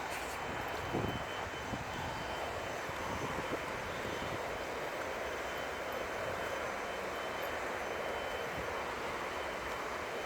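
Steady rushing drone of an aircraft passing overhead.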